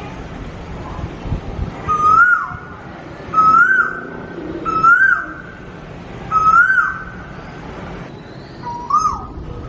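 Five short whistle-like calls, each holding a note, swooping up and then dropping in pitch, repeated about every second and a half, the last a little lower and shorter.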